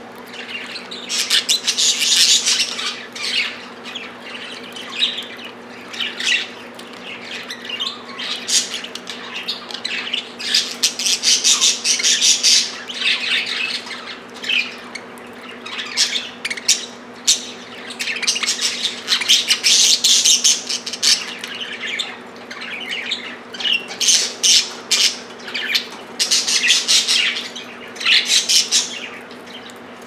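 Several budgerigars chattering and squawking in repeated bouts of a second or two, over a steady low hum.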